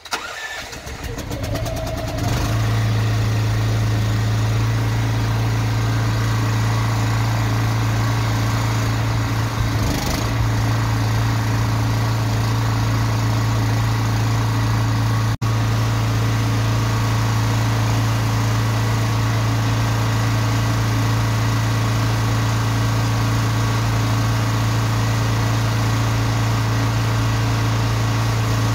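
Van-mounted drain jetting unit's engine starting, building over the first couple of seconds, then running at a steady, even speed with a strong low hum.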